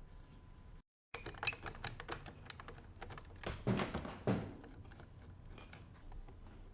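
Quick runs of small clicks and taps from plastic steering-wheel trim and button pieces being handled, with two louder knocks a little past the middle.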